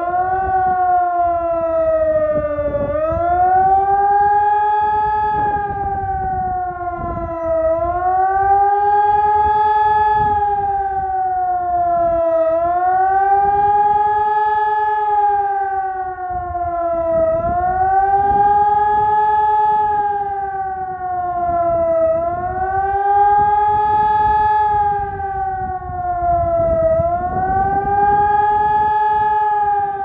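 Electronic high-mast siren with four horn speakers sounding the German public warning signal. Its wailing tone rises and falls about every five seconds, with the first rise finishing about half a second in.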